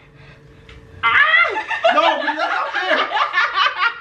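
A woman laughing hard, a long run of high-pitched giggling laughter that breaks out about a second in after a brief quiet moment.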